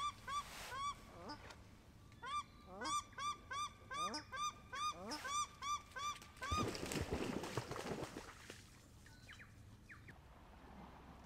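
Paradise shelducks giving alarm calls, a fast run of repeated honking calls, about three a second and overlapping from more than one bird: the birds are agitated by a dog close to them. The calling stops a little past halfway and is followed by a couple of seconds of rushing noise.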